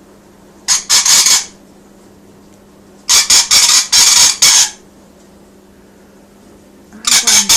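Rainbow lorikeet giving harsh, rasping screeches in three loud bouts of quick pulses: a short one about a second in, a longer one around the middle, and another starting near the end.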